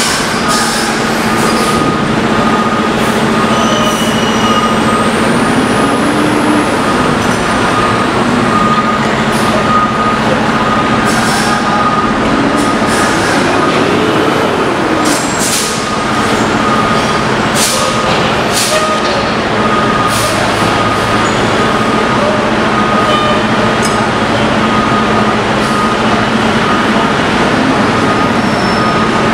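Curbtender garbage truck's diesel engine running steadily to drive the hydraulics, with a steady whine, as the raised body dumps its load. Scattered knocks and clatter come from recyclables falling out of the tipped body.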